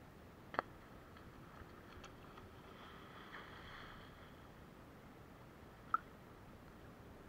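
Faint steady outdoor hiss by shallow water, broken by two short sharp clicks, one about half a second in and one near six seconds.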